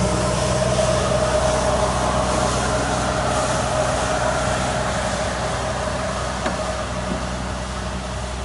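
Steady mechanical hum with a held mid-pitched tone.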